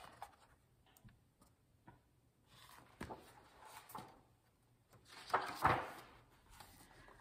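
Hardcover picture book being handled and its page turned: faint taps and paper rustles, then a louder swish of a page turning about five and a half seconds in.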